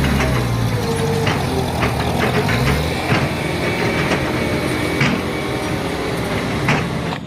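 A heavy vehicle's engine sound running steadily, shifting a little in pitch, with a few sharp clicks about three, five and nearly seven seconds in.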